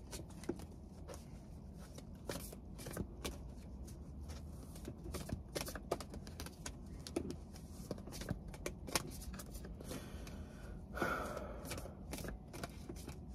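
Tarot cards being shuffled and handled by hand: a run of soft, irregular card flicks and taps, with a short louder rustle near the end.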